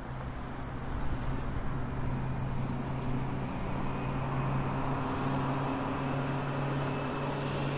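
A steady low mechanical hum with an even rushing noise, fading in over the first second.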